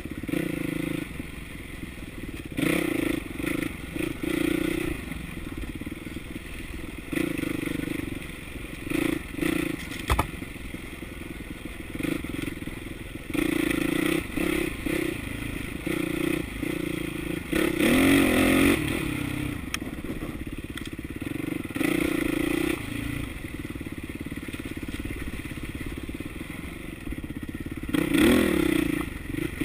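Dirt bike engine under riding load on rough trail, the throttle opened and closed in short bursts so the engine note keeps swelling and dropping, with a couple of sharper revs about two-thirds through and near the end. Rattling and scraping from the bike bouncing over rocks runs underneath.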